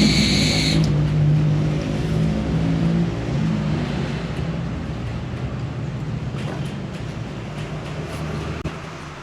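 A motor vehicle's engine running close by and gradually fading away, with a high-pitched whine that cuts off just under a second in. A few faint clicks come near the end.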